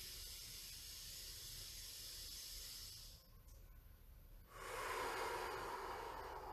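A man breathing slowly and deeply while holding a stretch. One long airy breath lasts about three seconds, then after a short pause a second, lower-sounding breath starts about four and a half seconds in.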